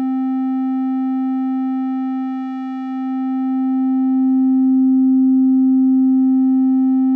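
A synthesized sine-wave test tone held steady near middle C, pushed through digital saturation so that a thin, buzzy edge of overtones is added to the pure tone. It dips slightly in level a few seconds in, then swells a little louder.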